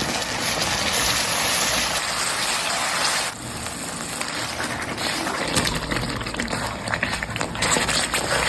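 Food sizzling as it fries in a pan: a dense, steady hiss that eases slightly a little over three seconds in, with scattered crackles after that.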